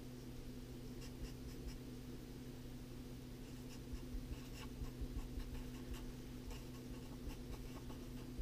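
Sharpie felt-tip marker writing on paper: faint, light strokes over a steady low hum.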